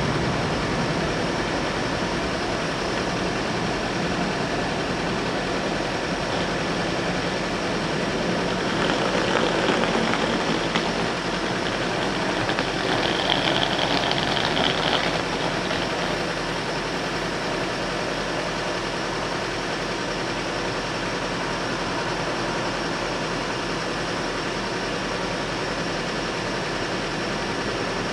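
Steady road-traffic noise with car engines idling at a closed level crossing. It grows louder for several seconds about a third of the way in, with a brief high steady tone near the middle.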